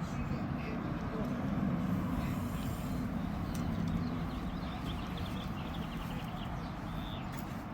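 Steady low outdoor rumble, with a small bird chirping in quick trills about five seconds in and again near the end.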